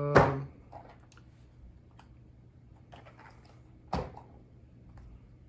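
A short drawn-out voiced 'so' at the start, then cardboard ammunition boxes being handled on a tabletop: faint small clicks and one sharper knock about four seconds in, as of a box set down.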